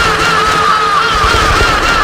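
Anime crow-swarm sound effect: a clear, arching chirp repeats about three times a second over a steady rush of noise and irregular low thuds.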